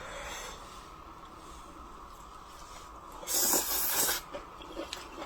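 Close-up eating sounds from a person's mouth: soft background, then one loud, noisy burst about a second long a little past halfway, followed by small wet clicks of chewing near the end.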